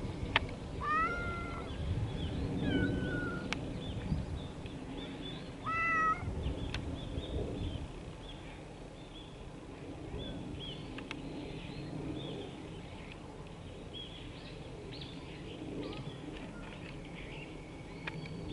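A cat meowing three times: short calls that bend in pitch, about one, three and six seconds in.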